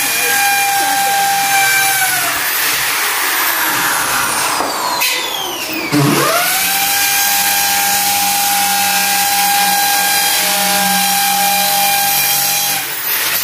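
An electric power tool motor runs in two bursts. Its steady whine dies away about two seconds in, then it spins up sharply about six seconds in and runs steadily until it stops near the end, over a harsh hiss.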